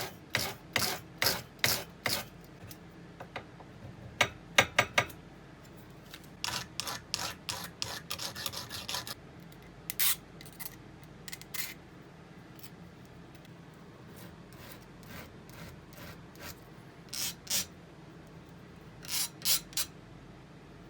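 Hand filing: groups of quick scraping strokes with pauses between them, the loudest group about four seconds in and a long pause in the middle.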